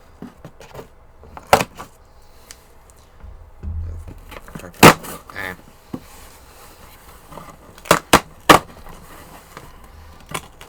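Cardboard box being opened and handled during an unboxing: sharp knocks and thuds, one about a second and a half in, a loud one near five seconds, and three quick ones close together about eight seconds in.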